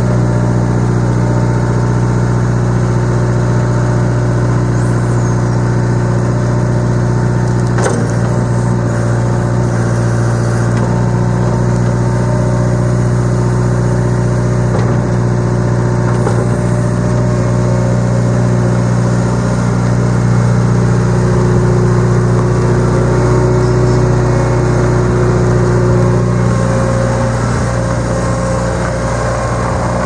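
Bobcat 843 skid steer's four-cylinder diesel engine running steadily at an even speed, with a single clank about eight seconds in.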